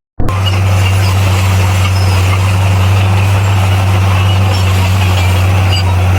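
Heavy diesel engine of earthmoving equipment running steadily with a loud low drone, after a brief break in the sound right at the start.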